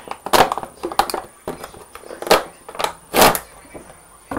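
Clear plastic toy packaging crackling and crinkling in handled bursts as it is pulled open by hand, the loudest crackle about three seconds in.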